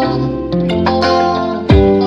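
Background music: held pitched notes with a deep drum hit near the end.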